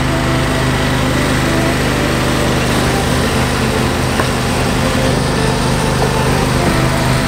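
Husqvarna YTH22V46 lawn tractor's Briggs & Stratton V-twin engine running at a steady speed as the tractor is driven down a loading ramp and away.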